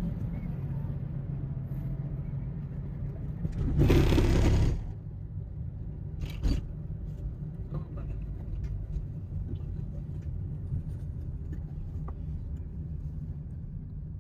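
Road noise heard from inside a moving vehicle: a steady low rumble, with a louder rush of noise about four seconds in that lasts about a second.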